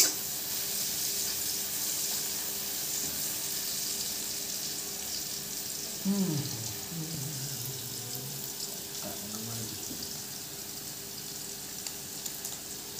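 Green pepper strips frying in hot oil in an iron kadhai, a steady sizzle, with a steel spatula knocking against the pan once at the very start.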